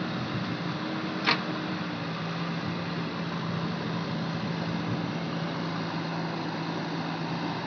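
JCB backhoe loader's diesel engine running with a steady drone, with one brief sharp knock a little over a second in.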